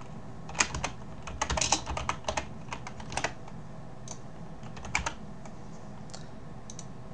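Typing on a computer keyboard: a quick run of keystrokes over the first few seconds, then a few scattered clicks.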